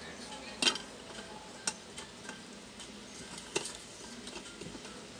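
Hands handling a rice cooker's wiring and white plastic parts while fitting insulation onto a wire: light rustling with three sharp clicks, the first and loudest under a second in.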